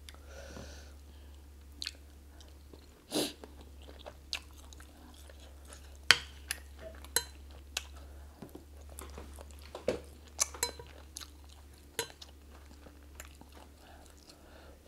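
Close-miked chewing and mouth sounds of someone eating chicken and plantain pepper soup, with scattered sharp clicks of a metal spoon against a ceramic bowl, over a steady low hum.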